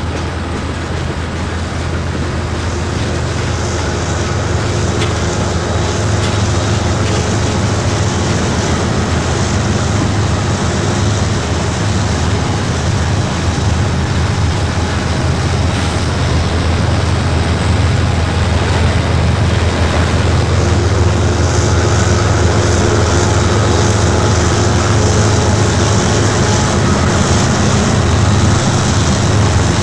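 Steady low rumble of a freight train with diesel locomotives rolling past, slowly growing louder.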